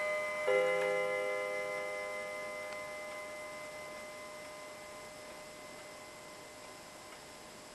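Weight-driven painted wall clock striking on its gong: one more stroke about half a second in, then a long ringing that dies away slowly.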